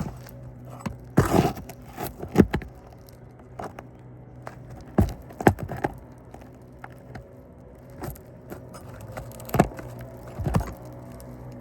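Irregular scrapes, clicks and knocks of a metal pry tool working roofing nails out from under asphalt shingles, with a steady low hum underneath.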